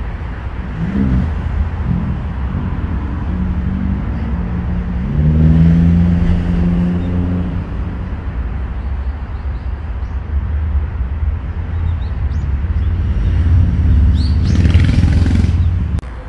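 Road traffic: a steady low rumble of passing vehicles, with an engine hum that rises and holds for a couple of seconds about five seconds in, and another swelling near the end. A few short bird chirps near the end.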